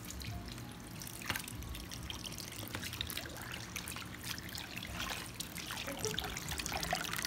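Water running from a garden hose into a basin of soapy laundry, with splashing and sloshing as the clothes are worked by hand in the water.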